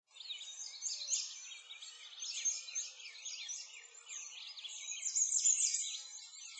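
A chorus of many small birds chirping and twittering at once, a dense stream of quick high chirps that swells and fades irregularly.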